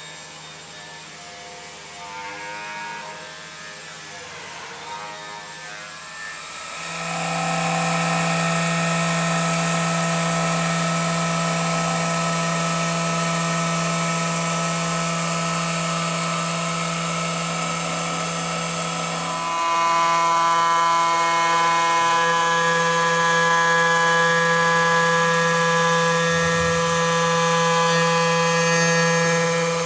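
Water-cooled grinding spindle of a stone-working machine running steadily on a marble panel, with a strong hum and a high whine. It comes in about a quarter of the way through and grows louder, its tone shifting, about two-thirds of the way through.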